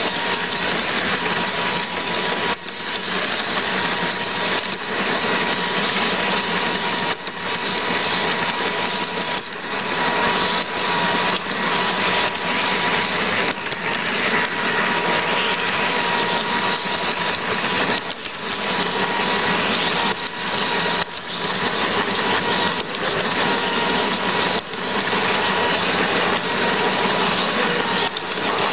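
Large-scale model train running, heard from on board: a steady grinding whir of the locomotive's electric motor and gearing and its wheels rolling on the rails, with a faint steady whine over it. The level dips briefly every few seconds.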